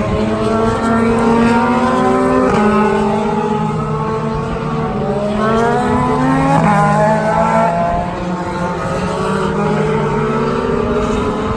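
IndyCar race cars' twin-turbo V6 engines accelerating past, several engine notes climbing in pitch with sharp drops at upshifts, about two and a half seconds in and again near the seven-second mark.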